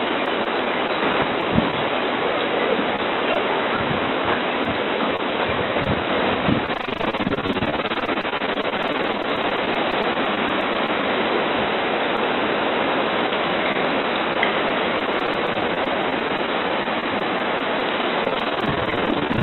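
Steady rush of hurricane wind and heavy rain picked up by a front-door security camera's microphone, with a few low thumps in the first seven seconds.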